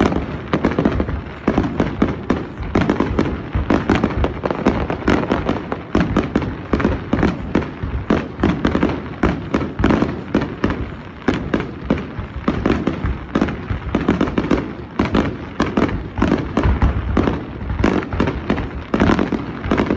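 Fireworks display: many shells going off in quick succession, a dense run of bangs with no break.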